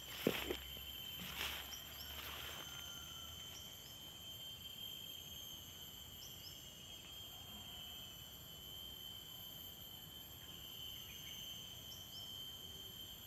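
Steady high-pitched chorus of insects droning on several even tones, with a few short high chirps every few seconds. Rustling footsteps through grass in the first couple of seconds.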